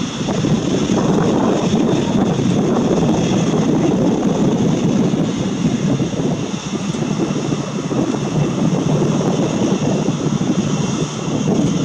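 Boeing 737-800's CFM56-7B jet engines running during the landing rollout, a steady loud rushing noise with a high whine above it.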